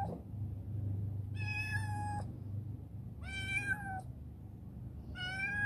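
Young black cat meowing three times, each meow drawn out for most of a second and level in pitch, about a second and a half apart, over a steady low hum.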